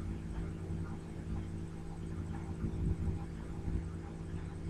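Steady low electrical hum made of several even tones, with a faint background hiss and no speech.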